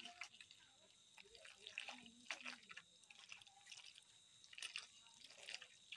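Faint wet squishing and small clicks of a hand kneading and squeezing grated raw elephant apple mixed with spices in a bowl.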